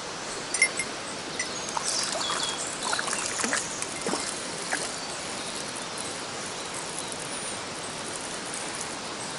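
Mountain stream water running steadily, with a scatter of short clicks and knocks in the first half.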